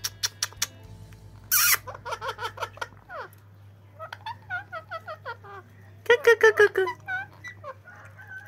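Pet parakeet chattering in runs of short, squeaky chirps, with one harsh screech about a second and a half in and the loudest run of calls about six seconds in.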